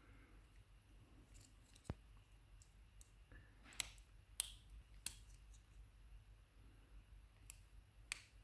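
A screwdriver prying at the circlip on a Zeiss Ikon WSW lock cylinder: about six sharp, irregular clicks as the tip slips and catches.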